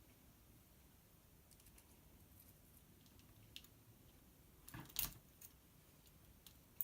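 Near silence with a few faint, scattered clicks and taps; the loudest is a short double click about five seconds in.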